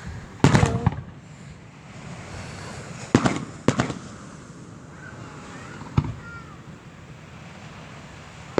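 Fireworks exploding: a rapid cluster of sharp bangs and crackles near the start, two more bangs about three seconds in, and a single bang about six seconds in, over a steady background hiss.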